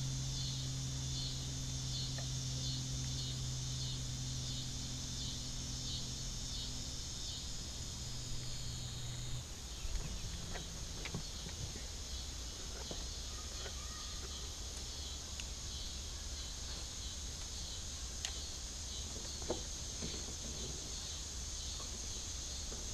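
Insects chirping in a summer evening chorus, pulsing about twice a second and then settling into a steadier high drone about halfway through. A low steady hum runs under the first half and stops, and a few light clicks follow.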